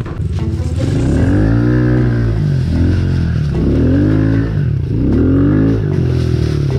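Pit bike engine revving up and easing off about three times as the bike is ridden over rough ground, its pitch climbing and falling with each throttle blip.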